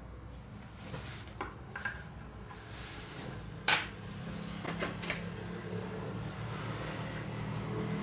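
Small clicks and taps of a smartphone's parts and repair tools being handled during disassembly, with one sharp click near the middle, over a steady low hum.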